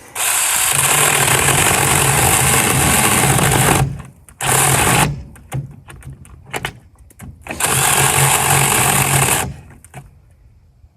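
Brookstone mini battery-powered electric chainsaw (400 W) running and cutting into a piece of oak in three runs: a long one of nearly four seconds, a brief one, then another of about two seconds.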